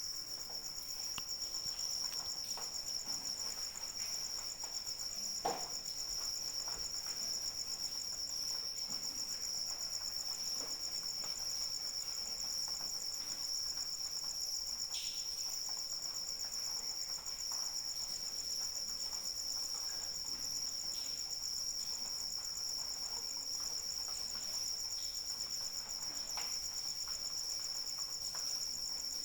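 A steady, unbroken chorus of crickets singing in several high tones, over light rain with scattered drips and ticks. One sharper drip or tick about five seconds in.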